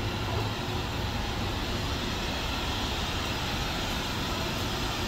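Steady hum and hiss of a light-rail train standing at the platform with its doors open.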